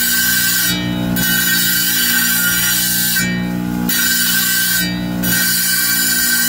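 Wet tile saw running, its blade grinding the edge of a hand-held stone. The high grinding hiss breaks off briefly three times, leaving the motor's steady hum.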